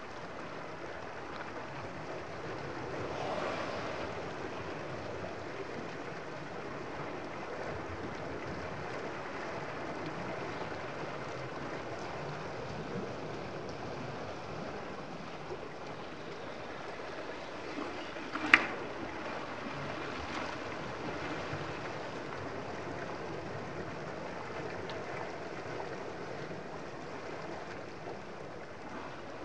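Steady wash of choppy sea water with some wind on the microphone, and a single short, sharp knock about two-thirds of the way through.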